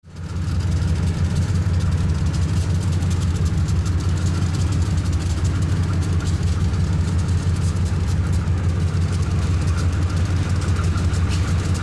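GE Super 7 (B23-7S) diesel locomotive idling, a steady low throb from its twelve-cylinder engine that fades in during the first half second.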